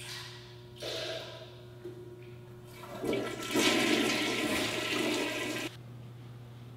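A public-restroom toilet flushing. After a couple of short bursts, loud rushing water takes over about three seconds in and cuts off suddenly near the end.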